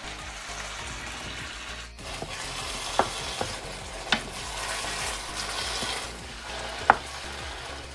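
Ground-meat and tomato sauce sizzling steadily in a frying pan as a wooden spoon stirs it, with three sharp knocks of the spoon against the pan or plate.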